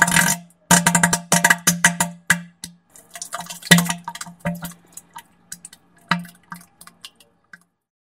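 Wet, sputtering fart sound effect imitating diarrhea: a run of rapid splattering bursts over a low buzzing tone, thinning out and stopping near the end.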